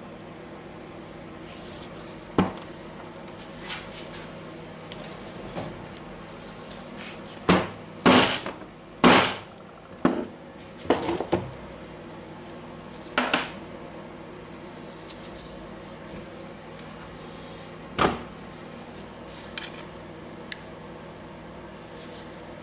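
Intermittent clinks and knocks of the steel parts of a DeWalt DCH273 rotary hammer's barrel assembly being handled and set down on a wooden bench, loudest in a quick cluster of clacks about eight to nine seconds in. A faint steady hum lies underneath.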